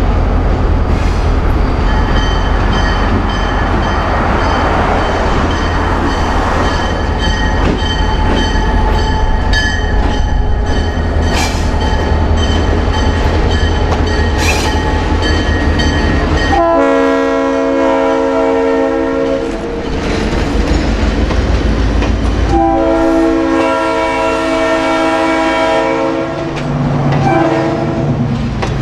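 EMD diesel locomotive running with a low, steady rumble. Its multi-chime air horn then sounds: two long blasts and a short one near the end.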